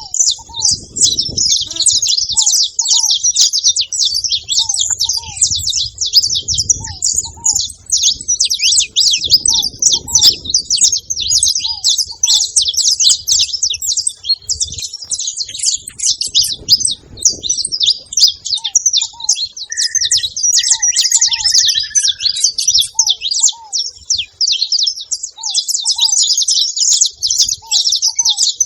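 Saffron finches chattering at a feeder: a dense, continuous stream of overlapping high chirps and chips from several birds, with a lower short note repeating every second or two.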